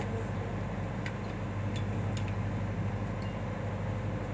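A few light clicks and taps from hands working on a twin fluorescent tube light fitting, over a steady low hum.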